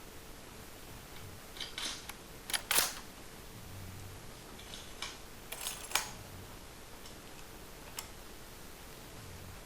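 Cyma M14 Socom airsoft rifle's bolt being worked twice, each time a quick metallic rattle ending in a sharp clack, the first near three seconds in and the second about six seconds in. A single light click follows near the end.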